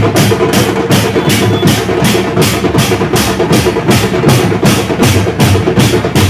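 Loud pad band music: drums beating a steady fast rhythm, about three sharp hits a second, over a steady held tone.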